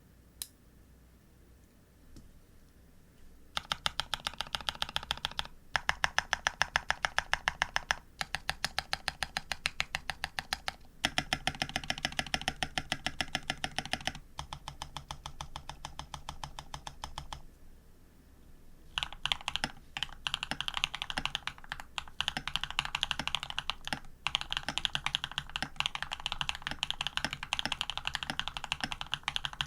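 Custom Ar87 mechanical keyboard being typed on: Jade Cream switches lubed with Krytox 205 and 105, on an aluminium plate with PBT keycaps, keys struck in quick runs. Quiet for the first few seconds, then several runs of fast typing with short breaks, a longer pause, and steady fast typing through the last third.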